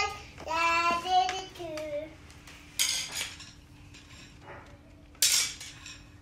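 A small child sings a short wavering tune for the first two seconds. Then badminton rackets clatter against stone patio tiles twice, about three and five seconds in, as they are set down.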